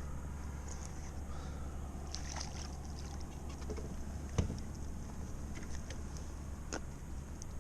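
Sounds of a fishing kayak on the water: a steady low rumble with scattered light clicks and taps, and one sharper knock about four and a half seconds in.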